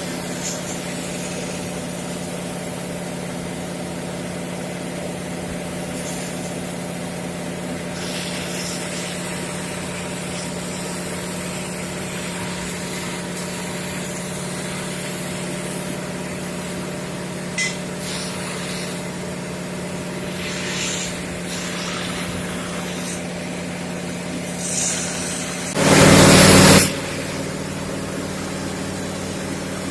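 Fire pump and its engine running steadily while drawing water through hydraulic ejectors. Near the end comes one loud rushing burst lasting about a second.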